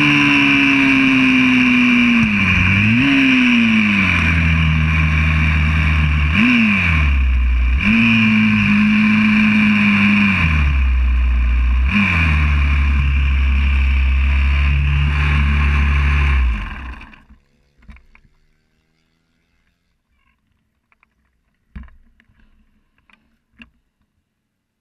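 Single-cylinder four-stroke engine of a YCF 125cc pit bike recorded onboard, its note repeatedly dropping and climbing as the rider backs off and opens the throttle through gear changes at low speed. About 17 seconds in it dies away to near silence as the engine stops, leaving only a few faint clicks.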